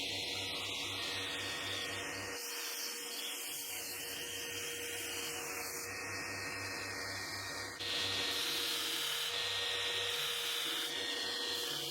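A power tool sanding or grinding the knife steadily, with a continuous motor hum under a rasping noise. It gets suddenly louder about eight seconds in.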